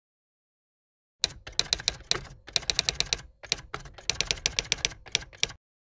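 Typing sound effect, typewriter-style key clacks in quick runs with short pauses between, starting about a second in and stopping abruptly near the end.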